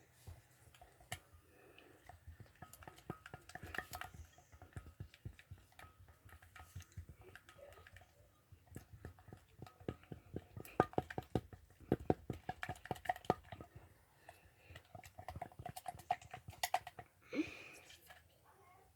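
Spoon clicking and scraping against a bowl while a toothpaste slime mixture is stirred, in quick runs of small taps.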